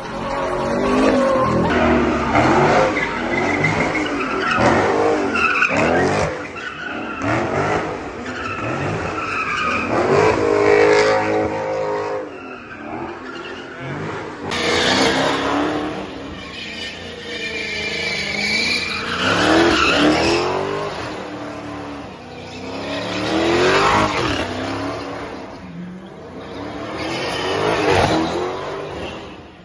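Cars doing burnouts and donuts: engines revving hard, the revs rising and falling again and again, while the spinning tyres squeal and skid.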